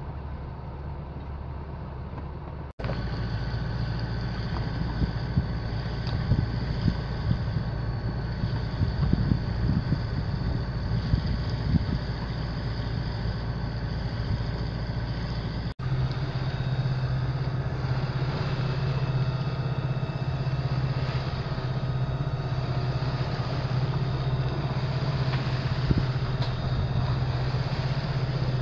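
A sailing yacht's inboard engine running steadily as the boat motors along, a low steady hum with some water and wind noise. The sound drops out briefly twice, about 3 and 16 seconds in.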